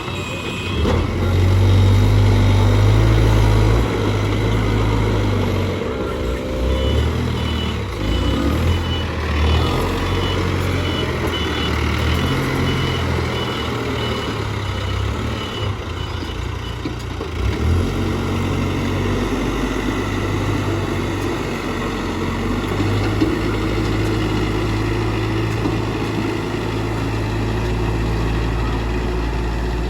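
Case 770EX backhoe loader's diesel engine running, its pitch rising and falling as it works under load. A reversing alarm beeps about once a second from about seven seconds in until about seventeen seconds in.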